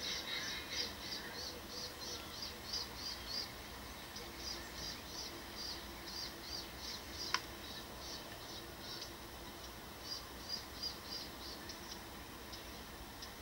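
Rapid, high-pitched chirping, about four short chirps a second in runs of a few seconds with brief gaps, and one sharp click about halfway through.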